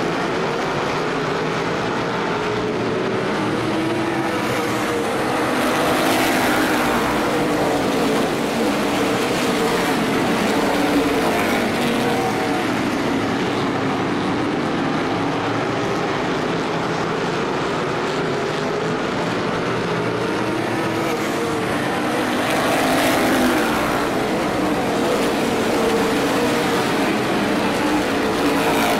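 Stock car engines running at racing speed around an oval track, swelling twice, about seventeen seconds apart, as the field passes close by, with the cars' engines heard more distantly in between.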